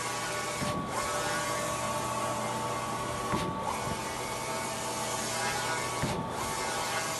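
Large-format eco-solvent inkjet printer running a print job: the print-head carriage sweeps across the media with a steady whir over a constant hum. The whir dips briefly three times, about every three seconds, as the carriage reaches the end of a pass and turns back.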